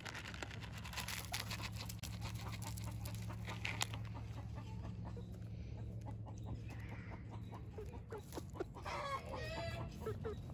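Hens clucking while feeding on scattered grain treats, with a run of quick ticks and taps over the first few seconds and a louder, wavering hen call near the end.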